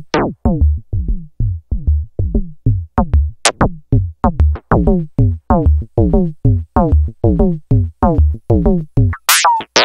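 A Eurorack modular synth patch plays a rhythmic run of short FM notes, about four a second, each falling in pitch over a deep bass thump. The notes are shaped by the After Later Audio QARV's envelopes and VCAs, with one envelope sweeping the filter. A high, falling zap cuts through about three and a half seconds in and again near the end.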